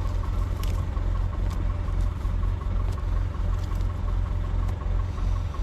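Massey Ferguson 575 tractor's four-cylinder diesel engine running steadily, with a fine even ticking and a few faint clicks over it.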